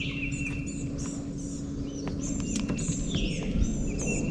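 Several songbirds chirping and calling in quick short notes and trills, over a steady low hum and a low rumble.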